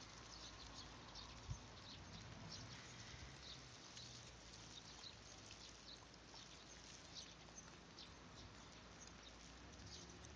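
Near silence: faint outdoor ambience with a low rumble and scattered faint ticks and clicks.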